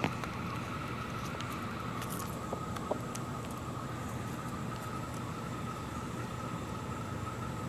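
Chickens pecking tortilla pieces off pavement: a few light taps over a steady background hiss with a faint, constant high tone.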